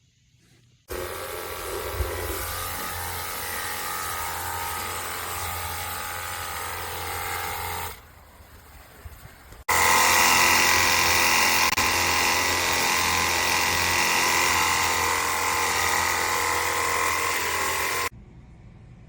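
Battery-powered cordless pressure washer (21 V) with its pump running and water spraying, in two runs of about seven and eight seconds. Each run starts and stops abruptly as the trigger is pulled and released, and the second run is louder.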